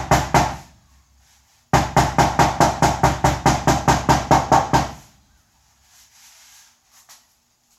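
Roofing hammer tapping a dent out of a car fender through a folded piece of vinyl, in quick even strikes of about five a second. A short run ends just after the start, and a second, longer run of about three seconds stops about five seconds in.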